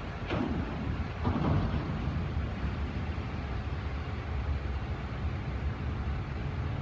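Steady low rumble of wind buffeting the microphone, mixed with the distant machinery of an intermodal rail yard. Two brief, louder bursts come in the first two seconds.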